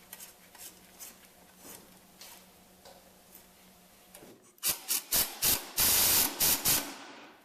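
Pneumatic impact wrench driving a lawn mower's blade bolt into the crankshaft: a few short bursts starting a little past halfway, then a longer run of about a second and a couple more bursts before it stops. Before that, only faint ticks of the blade and bolt being handled.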